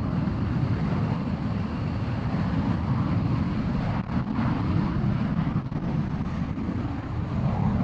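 F-16 fighter jet's engine running at taxi power: a steady low rumble.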